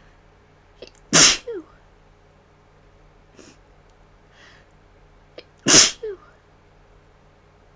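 A woman sneezing twice, about four and a half seconds apart. Each sneeze is a sharp, loud burst with a short, falling trailing sound just after it.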